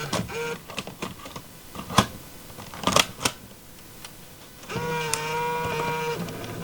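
A series of sharp mechanical clicks and clacks, the loudest about two seconds in and a quick cluster about a second later. They are followed by a steady pitched hum lasting about a second and a half.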